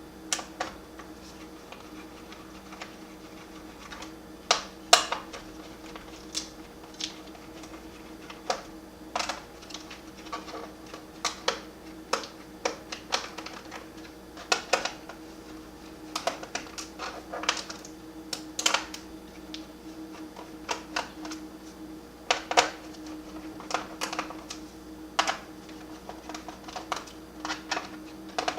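Small screwdriver unscrewing screws from a laptop's plastic bottom case: irregular light clicks and taps, over a faint steady hum.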